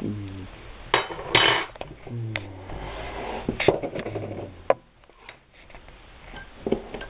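Kitchen crockery and cutlery being handled: a few sharp clicks and knocks, with a stretch of rustling clatter in the middle, dying down near the end.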